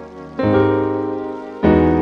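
Piano-type keyboard preset from a Roland Verselab MV-1 playing sustained chords: two chords struck about a second and a quarter apart, each ringing and fading.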